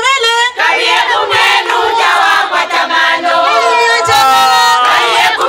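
Traditional Zambian kitchen-party song: a woman sings into a microphone while a group of women sing along with her. A few low thumps sound under the singing, the strongest about four seconds in.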